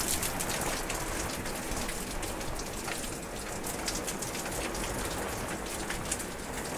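Steady rain, many separate drop hits heard as small ticks over an even hiss.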